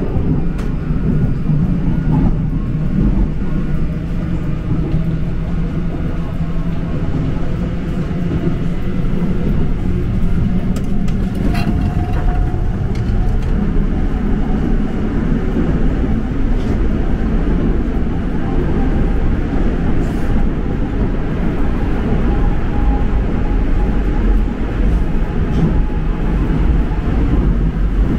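Seoul subway train running: a steady low rumble of wheels on track, with a few faint short squeals and clicks.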